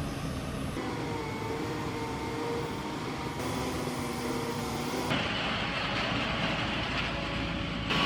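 Heavy machinery engines running steadily, in short spliced clips: the sound changes abruptly several times, each piece a steady engine drone with a few held tones.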